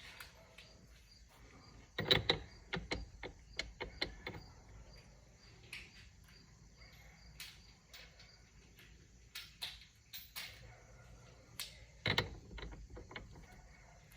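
Metal sockets and a socket wrench clinking and clicking as sockets are handled and tried on a steering wheel's centre nut, with scattered single clicks and two louder clusters of knocks, one about two seconds in and one near the end.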